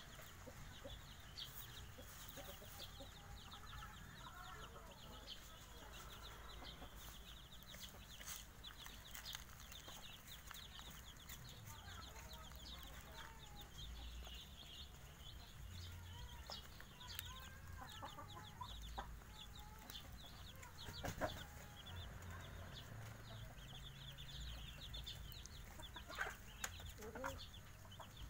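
Five-day-old Javanese village chicks peeping continually in quick, high chirps, while the mother hen clucks now and then. A sharp tap stands out about three quarters of the way through.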